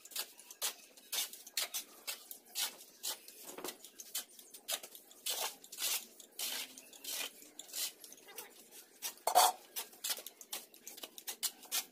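Two shovels scraping across a concrete floor and scooping into a heap of sand-and-cement mortar mix as it is turned over. The scrapes come quickly and irregularly, several a second, with one louder scrape about nine seconds in.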